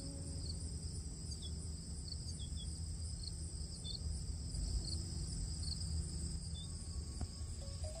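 Steady high-pitched chorus of insects chirping, with a few short, high bird chirps scattered through it over a low background rumble.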